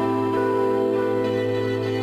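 Background music: slow, gentle new-age style music with sustained notes that change about once a second.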